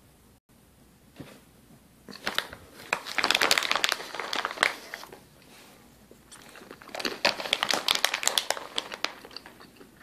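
Crinkly snack packaging being handled, in two spells of rustling and crackling: the first about two seconds in, lasting roughly three seconds, the second about seven seconds in.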